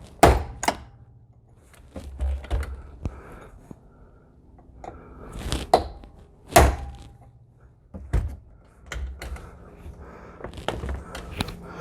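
A series of irregular sharp knocks and thuds, the loudest about six and a half seconds in. A car's steering wheel is being struck to jar it loose from its steering shaft.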